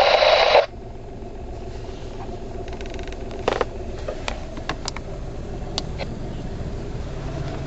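A loud burst of radio static hiss that cuts off sharply under a second in, as from a ham radio transceiver's receiver. A steady low rumble follows, with scattered faint clicks.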